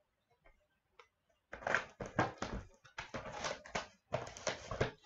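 Plastic shrink wrap crackling and tearing as a sealed box of trading cards is opened by hand, in three dense runs starting about a second and a half in.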